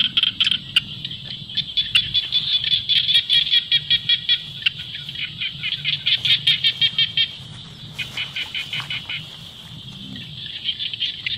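Birds chirping in a dense, rapid run of short high-pitched calls, several a second. The chirping thins out and grows quieter about seven seconds in, then picks up again near the end.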